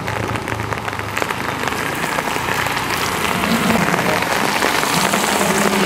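Steady heavy rain falling on a wet asphalt road, a dense hiss of countless drops.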